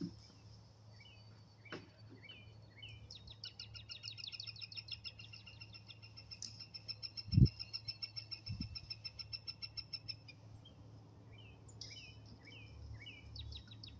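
Songbirds singing: a long, rapid high trill and short repeated downward chirps. A dull thump about seven seconds in, with a softer one a second later.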